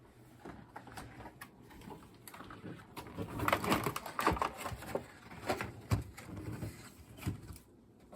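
Objects being handled: an irregular run of clicks and knocks, busiest and loudest in the middle, then dying away near the end.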